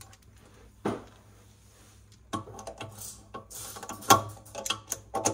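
Ratchet of a torque wrench clicking as it tightens the oil pan bolts: a couple of single clicks, then a quick run of ratchet clicks from about two seconds in, with a sharper, louder click about four seconds in.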